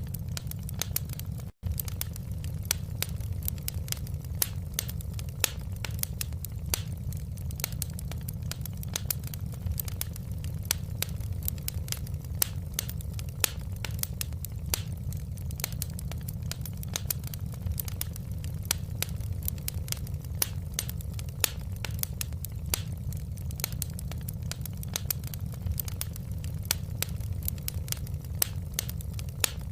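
Wood fire crackling in a fireplace: many irregular sharp pops and snaps over a steady low rumble of the burning fire. The sound drops out for a split second about a second and a half in.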